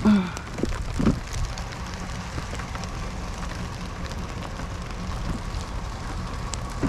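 Steady rain falling, with a short knock at the start and another about a second in, and a steady low hum underneath.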